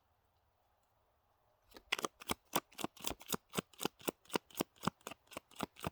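A small tarot deck being shuffled by hand: a quick, even run of card slaps, about five a second, starting a little under two seconds in.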